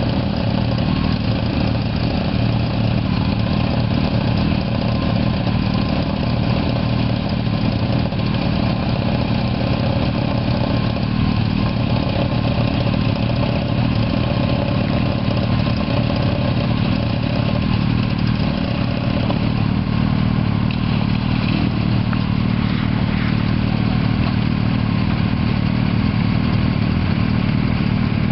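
Motorcycle engines idling steadily, an even low engine note that neither rises nor falls.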